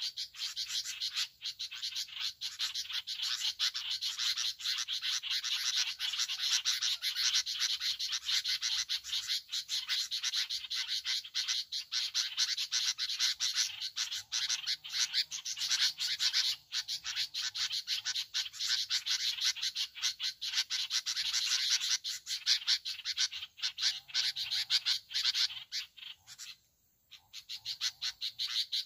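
A dense chorus of frogs calling in rapid, overlapping pulses; it drops out for about a second near the end, then resumes.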